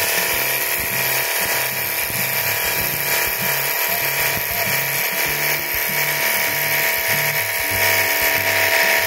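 A cordless 24V pressure washer's electric pump motor runs with a steady whine while water sprays hissing from its red high-pressure nozzle. Background music with a stepping bass line plays over it.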